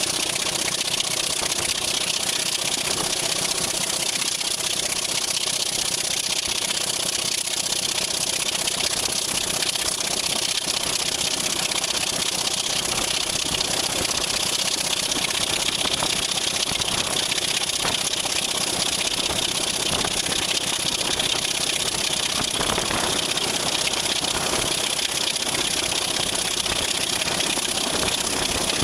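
Sulzer six-cylinder diesel engine of a British Rail Class 26 locomotive working steadily under way, heard close by over a steady rush of wind and running noise from the moving train.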